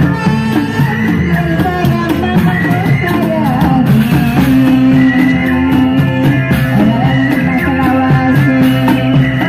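Loud reog dance music: drums beating steadily under a wavering sung or played melody line.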